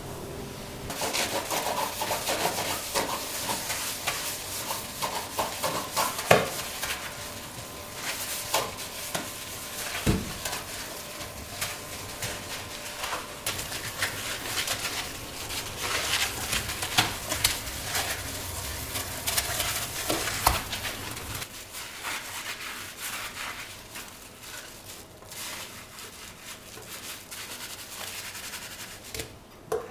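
Household handling sounds: rubbing and scraping with scattered light knocks and clicks, the sharpest about six seconds in.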